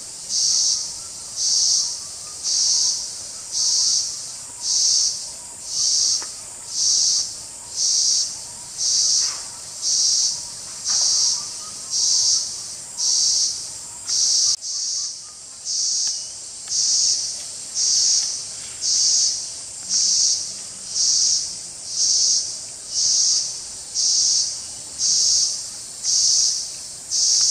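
An insect calling in a high-pitched, evenly spaced pulsing rhythm, about one pulse a second, each pulse a little over half a second long and steady in level.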